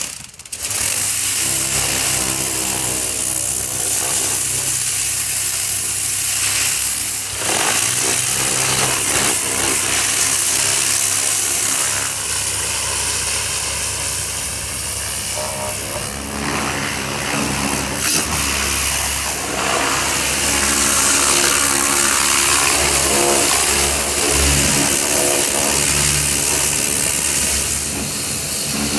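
Pressure washer running, a steady motor hum under the loud hiss of the high-pressure spray hitting a pickup truck's body. It comes on suddenly at the start.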